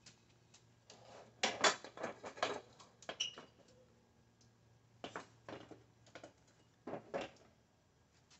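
2004 Acura TSX headlight assembly being worked loose from the car's front end by hand: irregular plastic clunks, clicks and short scrapes, in two bunches about a second in and about five seconds in.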